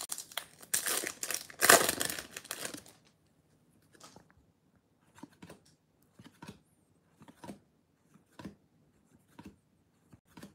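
Shiny trading-card pack wrapper torn open and crinkled for about three seconds. Then trading cards slide one at a time across the stack, a soft flick about once a second.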